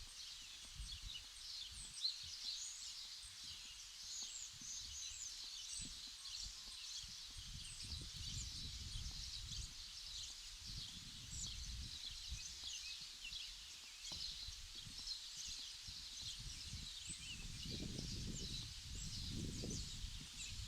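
Many small birds chirping and twittering, a dense chorus of short high calls, over an irregular low rumble that grows stronger near the end.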